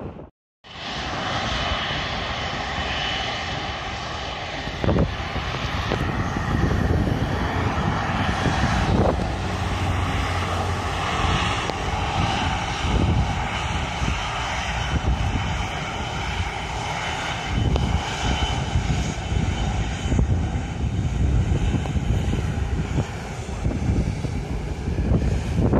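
Jet airliner engines running close by, a steady loud noise with a high whine held throughout.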